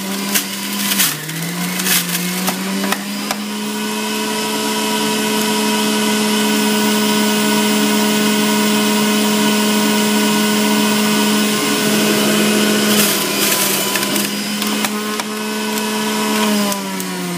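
Centrifugal juicer's motor running with a steady high hum while leafy greens are pushed down the feed chute. Its pitch sags briefly about a second in as the load bites, then recovers, with a few knocks from the pusher. Near the end the hum slides down in pitch as the motor is switched off and spins down.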